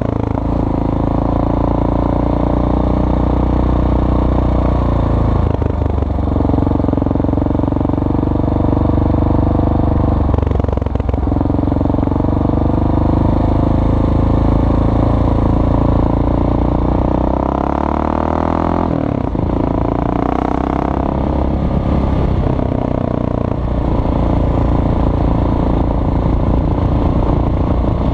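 Kawasaki KLR650's single-cylinder four-stroke engine running under way off-road. The engine note pauses briefly three times, about five, ten and nineteen seconds in, as with gear changes. Before the last break the revs climb for a few seconds.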